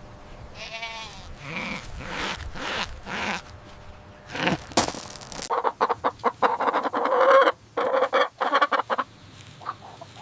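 Goat bleating with a quavering voice, several calls in the first half, then a busy run of hens clucking from about halfway through.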